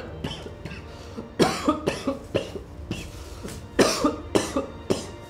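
A man coughing repeatedly: about eight or nine coughs in two bouts, starting about a second and a half in.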